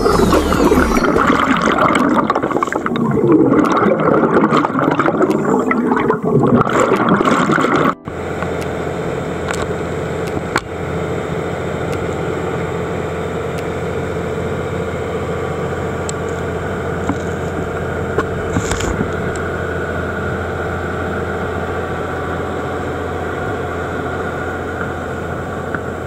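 A small boat's engine running steadily with water rushing past the hull. It starts abruptly about eight seconds in, after a louder, churning sound that cuts off suddenly.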